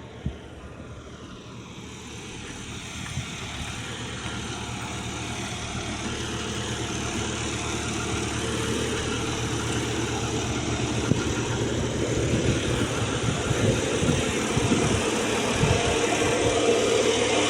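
A bulldozer's diesel engine running, with scattered knocks, growing steadily louder.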